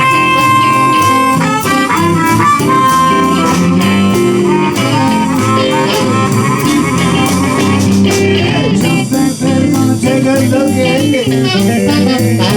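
Live blues band playing an instrumental break, with a wind-instrument lead over guitars, bass and drums. The lead holds long notes near the start, then moves into quicker runs.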